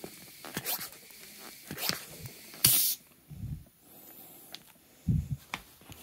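Pressure tester clicking and knocking as it is pumped against a Mikuni carburetor's needle and seat, then a short sharp hiss about two and a half seconds in as the needle and seat pops off. The pop-off comes at well over 25 PSI, higher than the 19–23 PSI wanted, a sign the inlet spring is too stiff.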